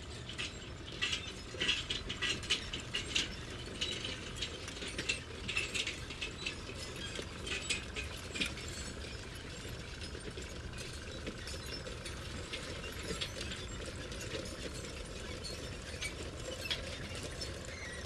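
Metal construction site ambience: irregular metallic clanks and clinks over a steady low rumble. The clanks come thick and fast at first and thin out after about nine seconds.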